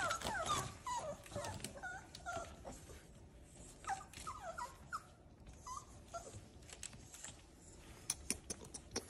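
Seven-week-old boxer puppies whimpering in short, high squeaky whines, many at first and thinning out after a few seconds. Near the end comes a quick run of sharp clicks.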